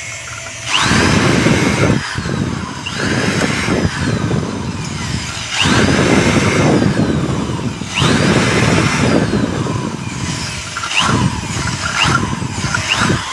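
Electric drill boring through an aluminium door frame at the hinge's screw holes, in about six bursts of a second or two each, the motor's whine rising as it spins up at the start of each. The stripped screw holes in the thin aluminium are being widened to take nut bolts.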